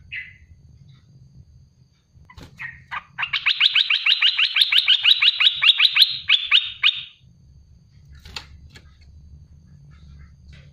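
Olive-winged bulbul (merbah belukar, cucak lumut) song: a couple of short single calls, then a rapid burst of about twenty sharp chattering notes at about five a second, lasting nearly four seconds. A few faint clicks follow.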